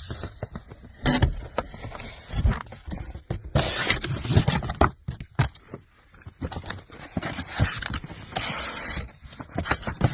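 Handling noise: irregular rustling, scraping and sharp knocks, with several louder stretches of rustle, as of things being picked up and moved close to the microphone.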